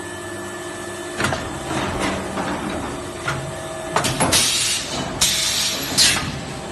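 Two-cavity extrusion blow moulding machine for 500 ml bottles cycling: a steady machine hum, a clunk about a second in, then from about four seconds in several sharp clunks and hisses of compressed air as the mould moves and the pneumatics fire.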